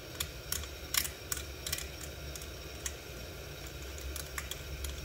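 Short, irregular clicks and rattles of a quick clip being worked loose by hand on an ROV's tether, several close together in the first two seconds and a few more later, over a low steady hum.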